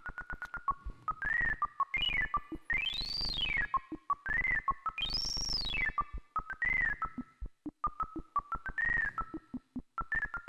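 Synthesized spatial-audio cueing tone from a flight simulator, the cue that tells a blindfolded pilot how to correct the aircraft's bank. A pure electronic tone beeps in quick short pulses and repeatedly swoops up in pitch and back down, the two biggest swoops climbing high and lasting about a second each.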